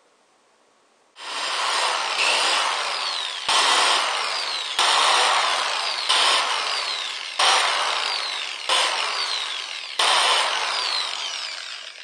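Corded electric drill boring small holes through a rubber plunger cup, in a string of short runs that each start abruptly, after about a second of near silence.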